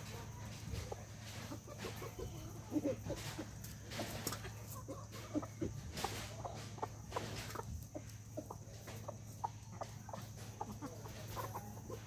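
A flock of chickens clucking in short, scattered calls while feeding, with sharp taps of beaks pecking at the feed bowls.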